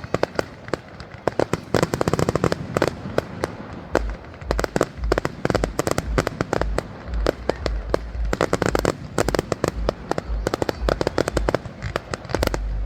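Fireworks show: rapid, overlapping cracks and bangs, with deep booms joining about four seconds in.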